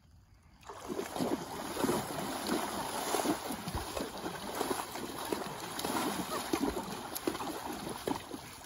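Two horses pawing the water of a shallow pond with their front hooves, making irregular splashing and sloshing that starts about a second in.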